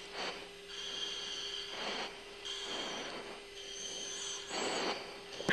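A pilot breathing into an oxygen-mask microphone on the cockpit intercom audio, three breaths a couple of seconds apart, over a steady electronic hum and whine.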